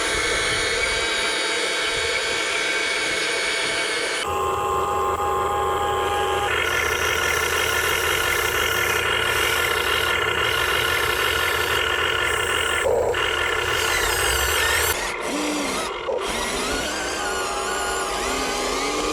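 Huina 1580 remote-control excavator's small electric motors and gearboxes whining steadily. The mix of tones changes several times as different movements start and stop, with short rising and falling pitch glides near the end.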